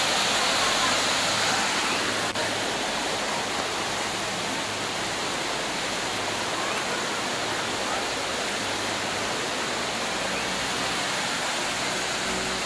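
La Mina Falls, a rainforest waterfall, plunging into its pool: a steady, even rush of falling water.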